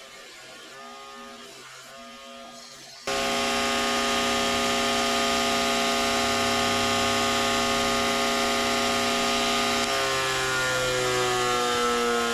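Bauer 8-inch bench grinder and belt sander running while steel is sanded on the 2-inch belt: a quieter pulsing hum, then about three seconds in a sudden jump to a loud, steady motor whine with a gritty sanding rasp. In the last couple of seconds the motor's pitch slowly sinks.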